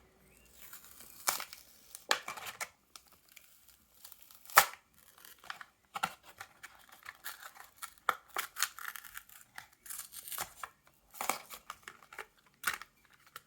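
A Hot Wheels card-and-plastic blister package being torn open by hand: irregular tearing of the card and crinkling of the plastic, with one sharp, loud crack about four and a half seconds in.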